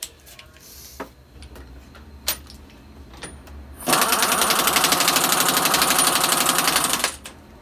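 Pneumatic impact wrench hammering in one steady burst of about three seconds, starting a little past midway, while it turns the threaded screw of a hub-and-bearing press tool. A few sharp metal clicks come before it.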